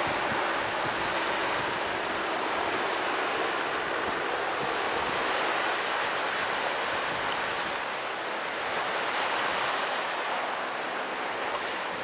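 Steady rushing noise of wind and surf, with the faint hum of a helicopter flying away. The helicopter fades during the first half.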